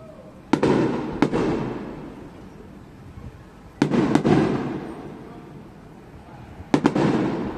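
Aerial firework shells bursting in pairs. There are two bangs about half a second in, two more near four seconds, and a quick double bang near the end, each fading away over a second or two.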